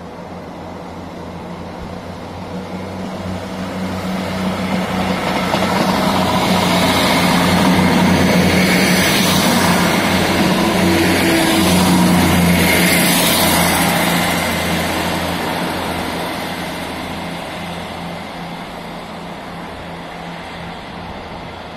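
A GWR intercity passenger train passing close by at speed. Engine hum and wheel rush build up, are loudest for several seconds in the middle, then fade away as it recedes.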